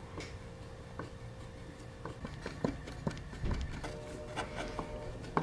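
Scattered light knocks and taps of wooden workpieces being handled and set in place, over a faint steady hum.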